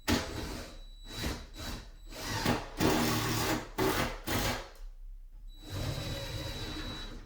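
Power drill driving screws through a shelf bracket into a wall stud, running in several bursts, the longer ones near the middle and near the end.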